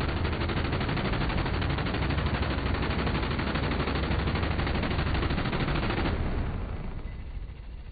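Multi-barrel rotary minigun firing one continuous burst of very rapid fire, which stops about six seconds in and dies away in the echo of an indoor range.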